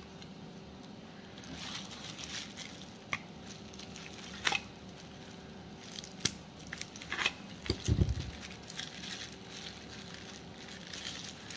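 Clear plastic packaging crinkling as fingers pick at it to find the end of the packing tape, with scattered sharp clicks and a dull thump about eight seconds in.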